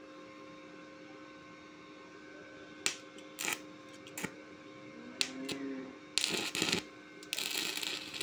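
Stick-welding electrode on a CLIF Arc200 inverter arc welder being tapped and scratched against a steel plate to strike the arc: several sharp clicks from about three seconds in, a brief sputter, then the arc catches and crackles steadily near the end. A faint steady hum runs underneath.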